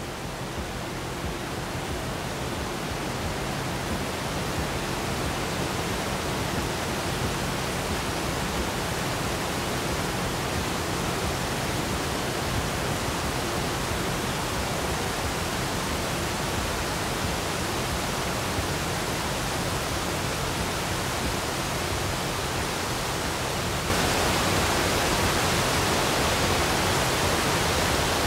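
Triple Falls in flood: a steady, dense rush of fast-moving water with no break. Near the end it steps up suddenly, louder and brighter.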